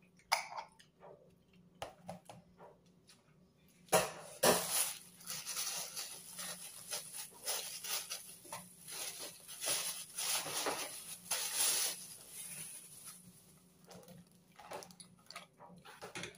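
A sharp knock, then a thin plastic bag crinkling and rustling for several seconds as it is handled and opened.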